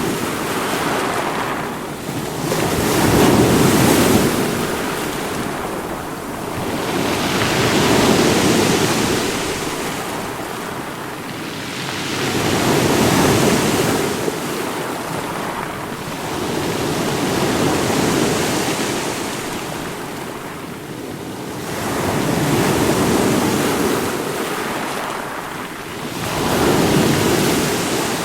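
Ocean waves washing ashore, a steady hiss of surf that swells and fades about every four to five seconds.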